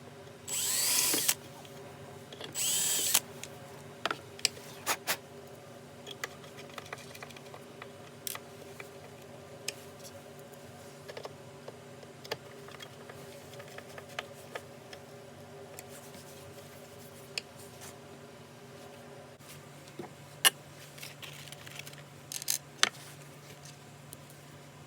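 Two short bursts of a power drill in the first few seconds, about two seconds apart, then scattered light clicks and taps of handled hardware and a few more short bits of noise near the end, over a faint steady hum.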